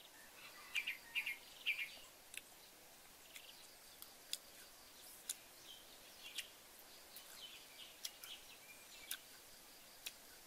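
Forest birds chirping: a quick run of short chirps in the first two seconds, then scattered sharp single chirps or clicks about once a second over a faint steady hiss.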